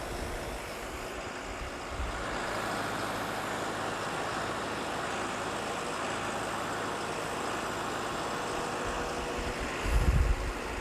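Backhoe loader's diesel engine running steadily under load while its excavator arm digs, a little louder from about two seconds in. A few low thumps near the end.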